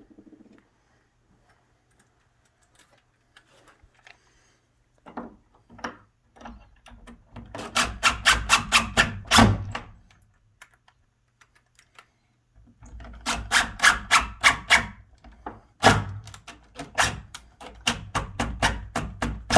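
Cordless impact driver driving the door latch's screws into pilot holes, in three bursts of rapid clicking hammering over a motor hum. A few light knocks come before the first burst.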